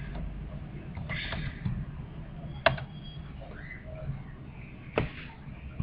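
Two sharp clicks a little over two seconds apart, over a low steady hum.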